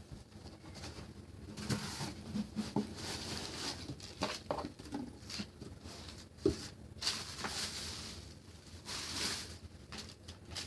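Subscription box being opened and its contents handled: irregular rustling and crinkling of packaging with scattered small taps and clicks, and one louder knock about six and a half seconds in.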